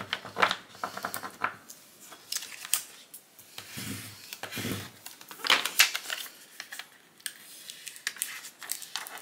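Plastic scraper rubbed over transfer tape laid on adhesive foil vinyl lettering, making quick scratchy strokes and clicks, with a louder crackle a little past halfway as the tape sheet is handled and lifted.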